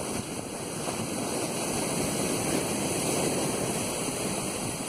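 Ocean surf breaking and washing up the sand in a steady rush of foam, swelling to its loudest a little past the middle.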